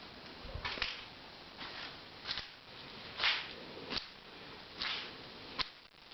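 Slow footsteps crunching on a rough, littered surface, about one step every three-quarters of a second, some with a sharp snap.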